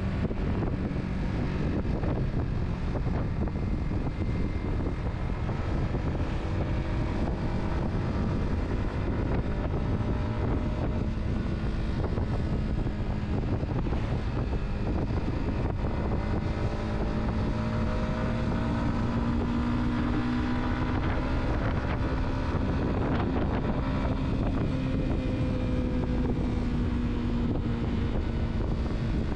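A car being driven, with a steady mix of engine hum, tyre and road noise, and wind. The engine note slowly rises and falls as the speed changes, climbing for a few seconds past the middle and easing off again near the end.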